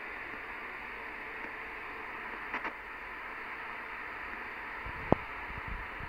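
Midland 79-893 CB radio receiving on channel 38 lower sideband: a steady static hiss from its speaker. There is a short crackle about two and a half seconds in, then a sharp click about five seconds in, followed by a few low knocks.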